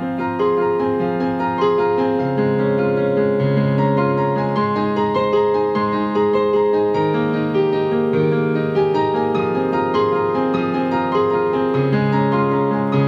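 Acoustic-piano sound from a digital piano, played through Edifier S1000W wireless bookshelf speakers over their line input: sustained chords with a melody above them, the notes held and overlapping.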